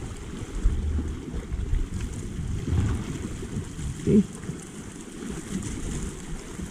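Wind rumbling on the microphone over small waves washing against shore rocks, with one brief louder sound about four seconds in.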